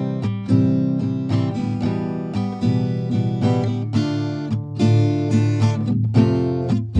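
Background music: acoustic guitar picking and strumming a steady run of notes.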